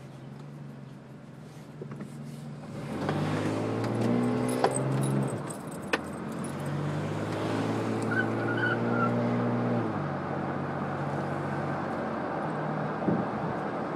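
Car engine and road noise heard from inside the cabin: the engine hums steadily, then its note rises as the car accelerates, twice, at about 3 to 5 seconds and again at about 7 to 10 seconds, each time breaking off at a gear change. A few sharp clicks stand out along the way.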